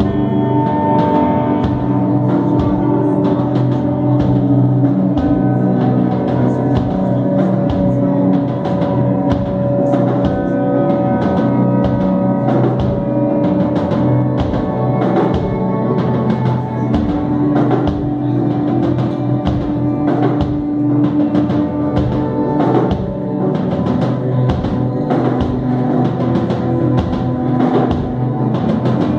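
Live band playing loudly: long held electric guitar notes from a Marshall amplifier over steady, regular drum hits.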